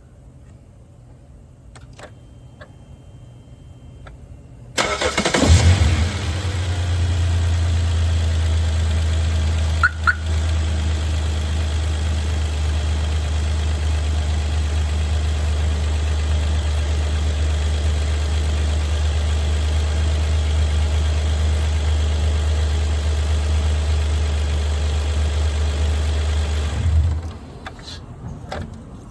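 2011 Hyundai Veracruz engine cold-started about five seconds in, then running with a steady low drone for some twenty seconds before it shuts off near the end. This is the cold-start noise the owner is asking about.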